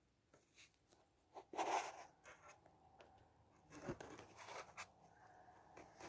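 Quiet handling noise as the camera is moved: soft rustles and scratches with scattered light clicks, the loudest rustle about a second and a half in and a sharp knock about four seconds in.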